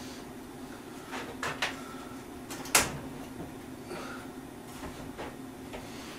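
Wooden framing knocking and bumping against the ceiling joists as a hand-held lumber 'ladder' frame is pushed up and shifted into place: a few sharp knocks, the loudest about three seconds in, over a steady low hum.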